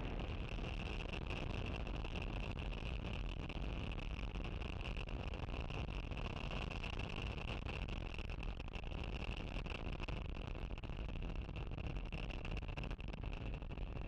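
Falcon 9 first stage's nine Merlin 1D engines firing during ascent, heard as steady rocket-engine noise through the onboard microphone, with a steady high whine over it.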